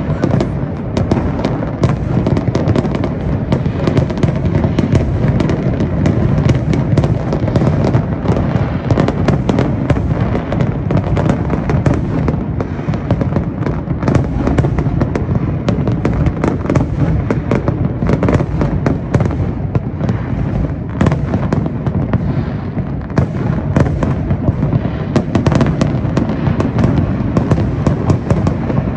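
Massed aerial fireworks display: a dense, unbroken volley of shell bursts and crackle, many going off at once, over a deep rumble.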